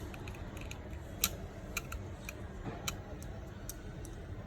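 Faint, irregular light clicks and taps of small tools and parts being handled as the vibration motor is fitted back into an iPhone 8 Plus housing, over a low steady hum.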